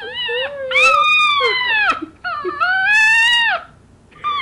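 Small blonde dog crying in two long, high whining wails, each rising and then falling away in pitch, one after the other: distress at her owner having left the house.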